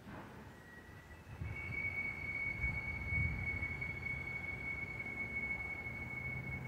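A steady high-pitched whine over a low rumble, both coming in about a second and a half in and growing louder.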